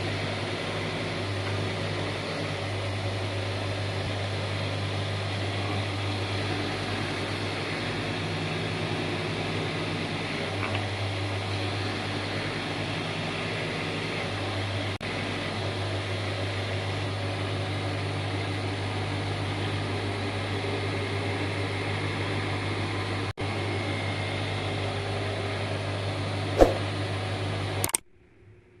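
A machine running steadily: a continuous low electric motor hum under an even rushing noise. A single sharp click comes near the end, and the sound then cuts off abruptly.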